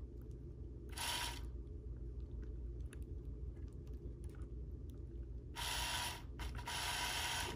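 Small electric motor of a BMW E46 side-mirror actuator whirring through its gears, powered directly from a power probe with the polarity reversed. It runs briefly about a second in, then again for about two seconds near the end, showing that the motor works.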